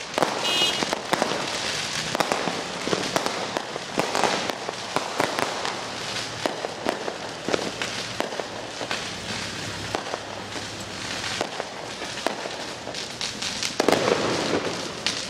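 Fireworks and firecrackers going off all around in rapid succession: a dense, unbroken run of pops, bangs and crackles, with a louder cluster of bangs near the end.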